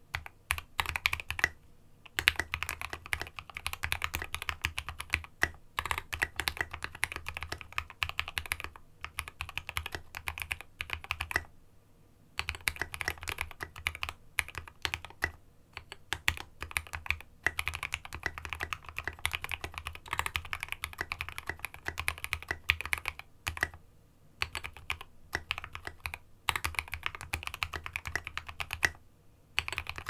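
Fast typing on a Space65 custom mechanical keyboard with lubed HHHH H1 switches, SA Oblivion keycaps and an aluminum plate, set on a deskmat. It is a steady run of keystroke clacks, broken by a few short pauses.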